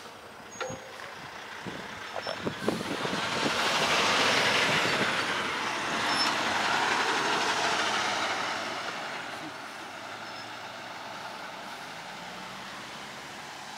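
A tractor-trailer semi truck passing close by. Its engine and tyre noise swells over a few seconds, holds for a few seconds, then fades as the truck drives away.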